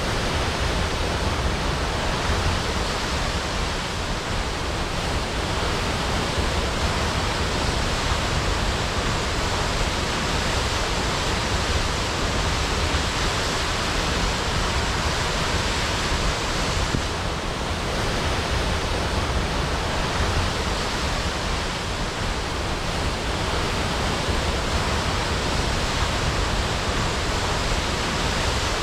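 Waterfall crashing: a steady, unbroken roar of falling water with a deep rumble underneath.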